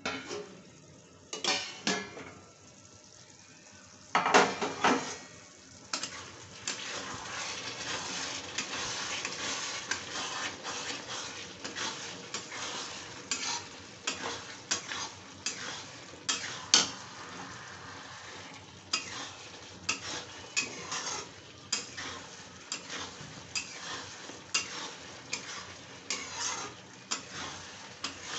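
A steel plate lid clatters as it is lifted off an iron kadai, the loudest clank about four seconds in. Then okra in a thick mustard masala sizzles steadily while a metal spatula stirs and scrapes it around the pan, with frequent irregular scrapes and clicks.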